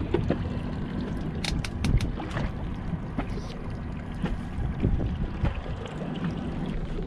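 Wind on the microphone aboard a small fishing boat, over a low steady rumble, with a few sharp clicks about a second and a half in.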